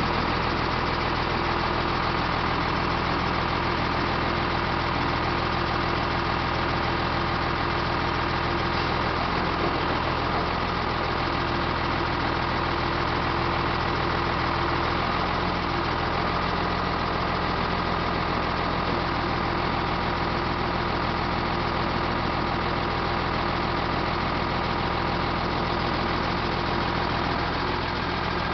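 Steyr 1291 truck's diesel engine running steadily, powering the hydraulics of its Palfinger loader crane while the boom moves. A constant hum with several held tones.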